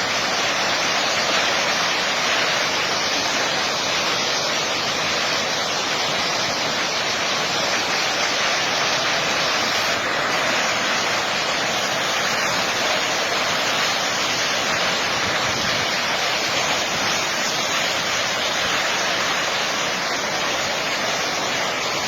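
Floodwater rushing in a steady, loud torrent.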